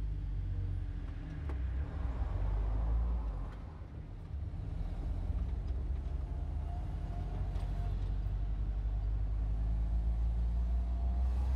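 Car driving on the road: a steady low rumble of engine and road noise, dipping briefly about four seconds in.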